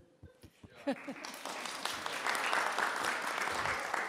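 A roomful of people applauding: the clapping starts about a second in, builds, then slowly tapers off.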